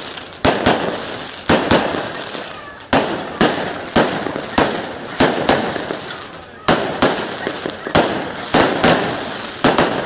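Aerial fireworks display by Pirotecnica Fucito: shells bursting in quick succession, sharp bangs about twice a second, each dying away before the next.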